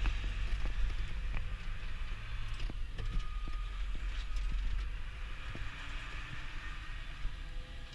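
Diesel tractor engine running, heard from inside the cab: a steady low rumble with scattered knocks and rattles. The engine note changes about three seconds in.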